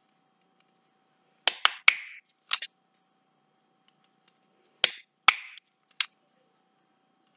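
Stapler being squeezed through a stack of paper and card to bind a small notebook. The sharp clicks come in two quick clusters, four about a second and a half in and three about five seconds in.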